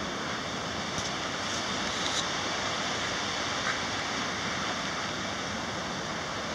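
Paulina Creek rushing over rocks, a steady, even rush of water.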